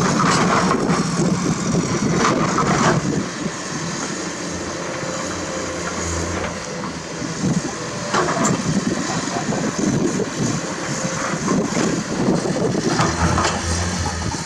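Komatsu PC210-10 hydraulic excavator's diesel engine running steadily under working load, with a few louder, noisy stretches of clatter.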